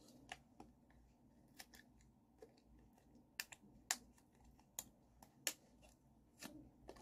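Faint, irregular sharp clicks and ticks, about a dozen over several seconds, the loudest about four seconds in, from hands handling small objects close to the microphone.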